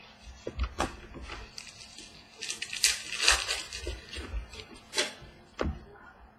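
Football trading cards being flipped through and handled: a few sharp clicks and short rustling slides of card stock.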